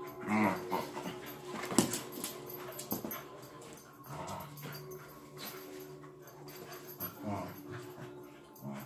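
Two Griffon Fauve de Bretagne dogs play-fighting, with short growls and whines in bursts through the tussle. A sharp knock about two seconds in is the loudest sound.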